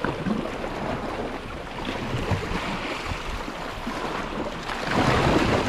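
Sea surf washing in, with wind on the microphone; a wave surges louder near the end.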